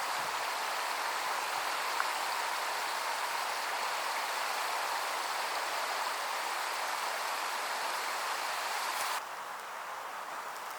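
Steady rush of running water, like a stream, which drops suddenly to a quieter level about nine seconds in.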